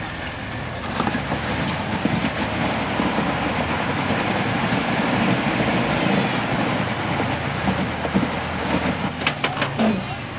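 Off-road vehicle's engine working under load as it crawls up a rock ledge. A few sharp knocks near the end.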